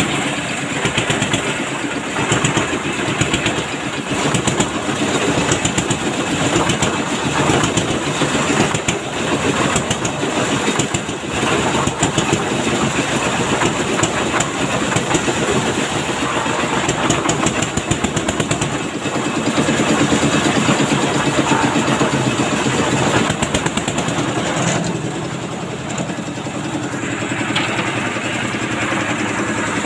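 Engine of a portable concrete mixer with lift hoist running steadily, with a fast even beat, as it drives the winch that hauls a bucket of wet concrete up the hoist tower. The level dips slightly for a moment near the end.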